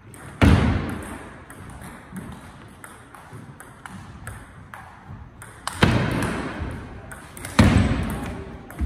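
Table tennis rally: the celluloid-type ball clicking sharply off the paddles and table, with three much louder impacts that ring out in the hall, about half a second in and twice near the end.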